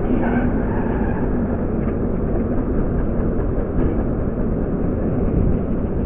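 Onboard sound of a kart running on three wheels after losing one: a steady low rumble and rattle of the engine and chassis.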